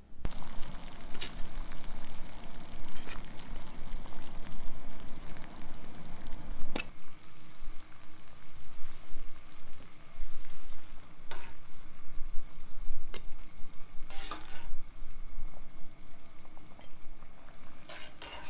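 Pot of water at a rolling boil, bubbling steadily, with occasional clinks and scrapes of a metal spoon against the pot as shiratama rice-flour dumplings are scooped out.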